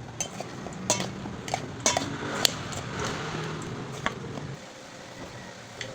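Kitchen utensils clinking against pots and dishes: about seven sharp, scattered clinks over a low steady hum that stops about three-quarters of the way through.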